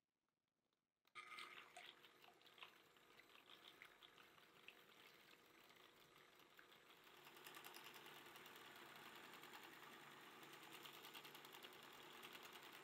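Electric hand mixer running with two wire beaters whipping cream in a glass bowl, with irregular clicks of the beaters against the glass. It starts about a second in, and from about halfway the sound grows steadier and denser as the cream thickens to a foam.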